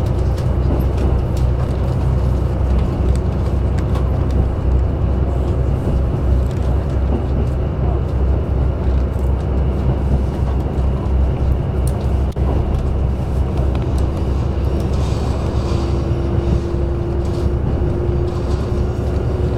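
Interior sound of a KiHa 85 series diesel railcar under way: the Cummins diesel engines run with a steady low rumble. About two-thirds of the way through, a thin tone enters and creeps slowly upward in pitch.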